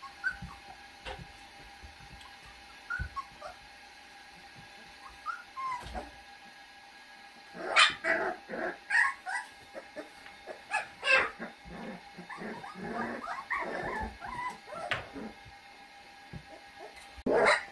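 Litter of Australian Shepherd–Hanging Tree cross puppies whimpering and yipping: small scattered squeaks at first, a busy run of short yips in the middle, and one loud cry near the end.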